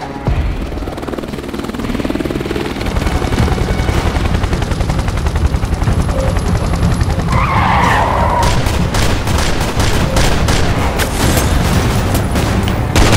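Loud action-film sound mix: a steady deep rumble, joined from about nine seconds in by rapid sharp hits that come thick and fast.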